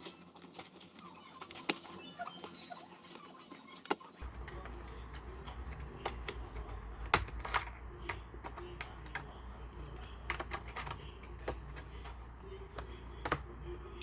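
Irregular light clicks and taps from hands working on an ASUS ROG Strix G512LI laptop during a RAM upgrade, with a steady low hum starting abruptly about four seconds in.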